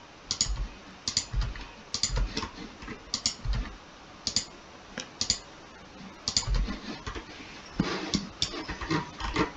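Irregular computer mouse clicks and keyboard key presses, about one a second, some with a low thud, as objects on screen are picked and deleted.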